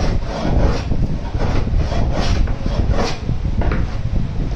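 Back-and-forth rubbing strokes on plywood, a scratchy scrape about twice a second at an uneven pace, over a steady low rumble.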